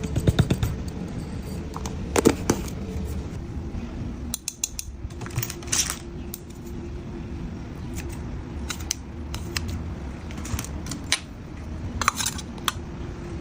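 Scattered light clinks and clicks of a bowl and utensils being handled, a few at a time with pauses between, over a steady low hum.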